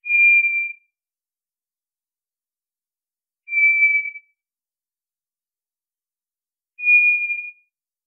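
White's thrush singing: three single, level whistles at the same pitch, each just under a second long, about three and a half seconds apart.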